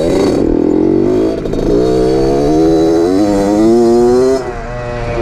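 Single-cylinder two-stroke engine of a 2003 Suzuki RM60 mini dirt bike running hard under throttle. Its pitch climbs steadily for a couple of seconds, then drops suddenly as the throttle is rolled off about four seconds in.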